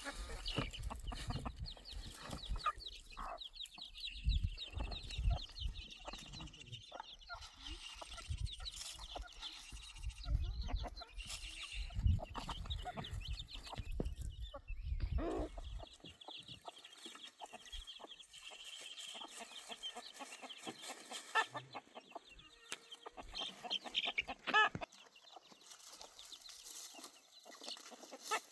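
Chickens clucking on and off, with short repeated calls. A low rumble under the first half stops about halfway through.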